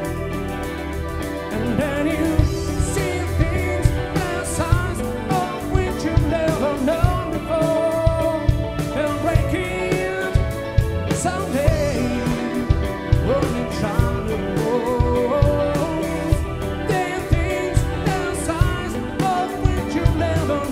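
Live rock band playing with electric guitars, drums and keyboard, a male lead singer coming in about two seconds in, over a steady drum beat.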